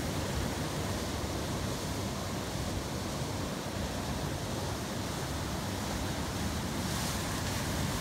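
Ocean surf breaking over rocks and washing in against a seawall, a steady rushing that swells slightly near the end as a wave washes in.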